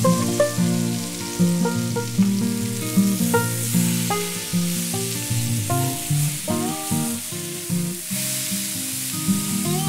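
Marinated chicken pieces sizzling as they fry on a low flame in a nonstick pan, turned with a metal spatula. Background music of short plucked notes plays over it.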